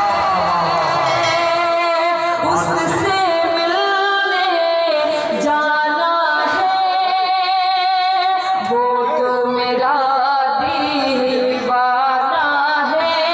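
A woman singing a ghazal into a stage microphone, melodic with long held, wavering notes.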